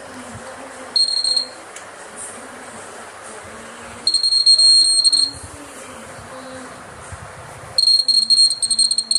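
Buzzer of an Arduino ultrasonic obstacle sensor on a blind stick beeping with a high, steady tone: a short beep about a second in, a longer beep at about four seconds, then a fast run of short beeps near the end. Each beep is the alert that an obstacle is close to the sensor.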